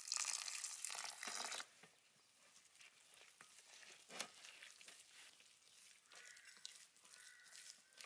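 Water pouring in a thin stream onto corn flour and spices in a metal tray, a steady hiss that stops about a second and a half in. Then a hand squishing and kneading the wet mixture into a marinade paste, with soft irregular squelches.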